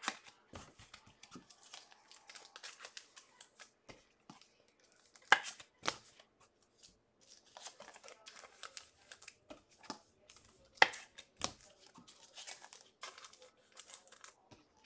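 Plastic-foil wrappers of Bowman baseball card packs being torn open and crinkled, with a few sharp taps of cards or boxes being handled on the table.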